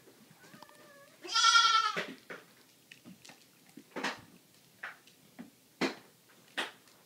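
A young goat kid bleats: a faint wavering call, then a loud bleat of nearly a second about a second in. Several short knocks and taps follow.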